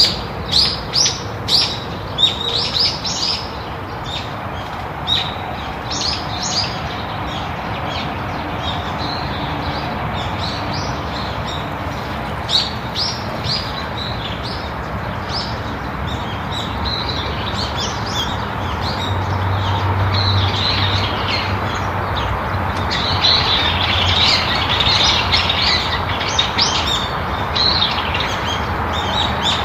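Small birds chirping and tweeting in quick runs of short high notes, thickest about two-thirds of the way through, over a steady background hiss.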